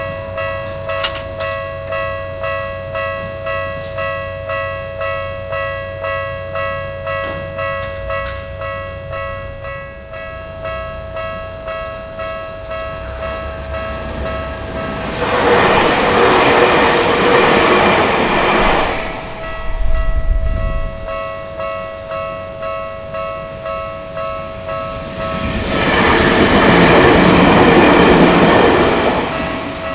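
Japanese railway crossing alarm bell ringing steadily, about one and a half strokes a second. An electric Tokyu Tamagawa Line train passes about 15 seconds in, and a second one about 25 seconds in, each louder than the bell while it goes by.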